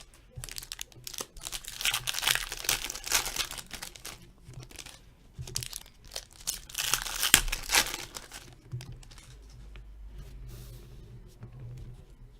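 Hockey card packs being torn open and their wrappers crumpled, in repeated bursts of tearing and crinkling, then softer rustling for the last few seconds.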